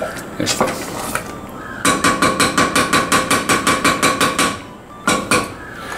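Wooden spatula knocking rapidly against a metal saucepan of thick jam, about six or seven strikes a second for a couple of seconds. The pan rings with each strike. A few single knocks come before and after the run.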